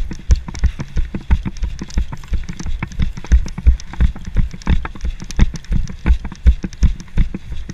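Running footsteps, about three strides a second, each stride a heavy thump with gear rattling on the body-worn camera.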